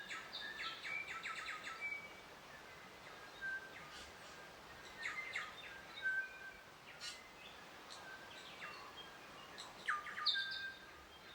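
Birds chirping: short bursts of high chirps and whistled notes every few seconds over a faint steady hiss.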